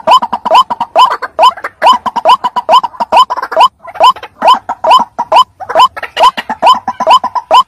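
White-breasted waterhen (ruak-ruak) calling: a loud, unbroken run of short rising notes, about three to four a second. It is a lure call recording for trapping the bird.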